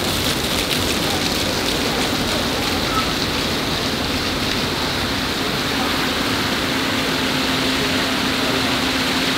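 Steady rush of water pouring and splattering from water-park fountains and spray features, like heavy rain on a deck. A faint steady hum joins about halfway through.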